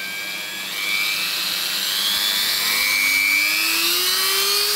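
Handheld electric rotary tool (engraver) running free with no load. Its motor whine rises steadily in pitch as it spins up toward high speed, and it gets louder about a second in.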